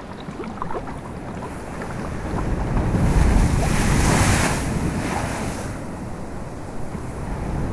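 Rough sea with wind blowing and waves surging; a wave swells to a loud rush about three to four and a half seconds in, then eases before building again near the end.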